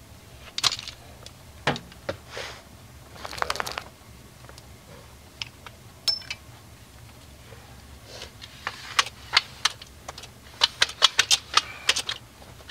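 A folding ladder being handled and opened out: scattered knocks and clicks, then a quick run of sharp clicks and clacks near the end as it is extended and stood against the camper.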